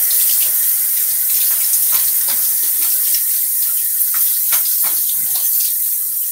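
Bathroom sink tap running hard into the basin, with irregular splashing as hands work in the stream.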